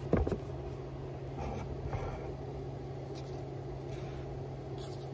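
Cardboard packaging and paper being handled: a short knock right at the start, then light scratching and rustling as the contents are worked out of a cardboard tube, over a steady low hum.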